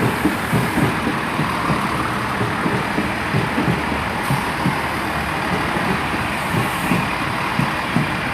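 Two coupled Class 165 diesel multiple units running slowly into the platform: steady diesel engine rumble with irregular low knocks from the wheels on the track.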